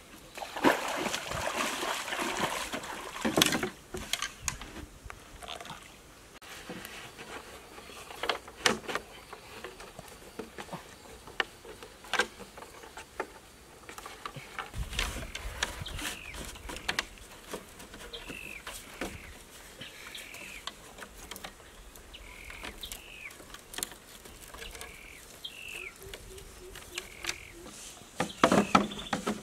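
Green bamboo poles knocking and scraping as they are handled and lashed into a raft: scattered sharp, hollow-sounding knocks, a denser stretch of handling noise in the first few seconds and a louder burst of noise near the end. Short bird chirps in the background through the second half.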